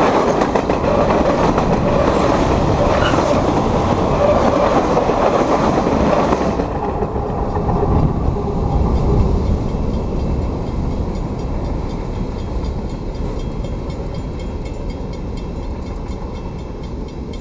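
Freight train cars rolling past at speed right beside the rail, wheels clattering and rumbling. The last car passes about six and a half seconds in, the clatter cuts off, and a low rumble slowly fades as the train moves away.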